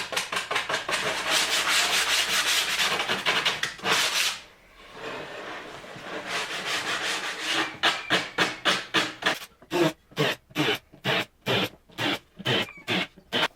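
Wood being sanded by hand: fast back-and-forth rubbing strokes, a short pause about four seconds in, then strokes that slow to about three a second, each separate, near the end.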